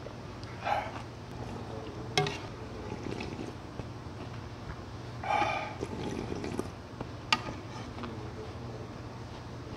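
Broth slurped from a ladle twice, about a second in and again about five seconds in, with sharp clinks of the metal ladle against the large soup bowl in between, over a steady low hum.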